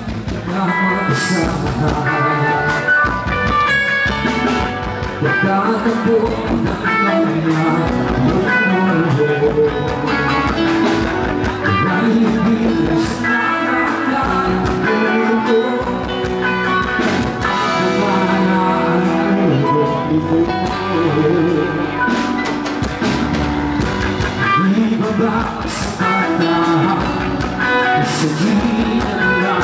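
A live rock band playing: electric guitars, bass guitar, keyboard and a drum kit, with a male singer at the microphone.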